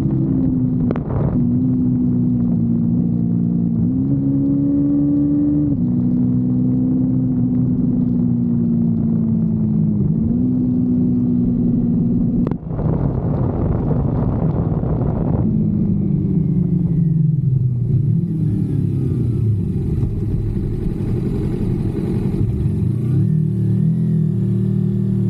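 Kawasaki Versys-X 250's parallel-twin engine pulling along a winding road, its pitch holding, then stepping and sliding several times as revs change. About twelve and a half seconds in it dips sharply with a click, and in the second half the revs fall and climb again through the bends.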